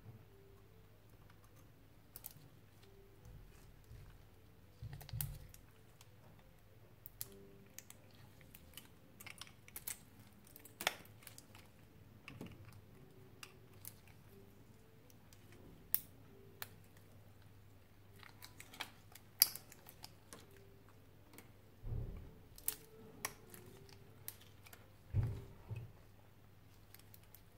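Needle-nose pliers and a screwdriver clicking and scraping against the metal cap of a Samsung 18650 lithium-ion cell as it is pried apart. Irregular small metallic clicks throughout, with a few duller knocks.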